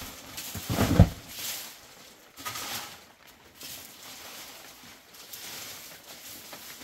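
Dry leaves and debris rustling and scraping over a dirt floor as they are swept with a twig broom and pushed along with a long wooden pole, with one sharp thump about a second in.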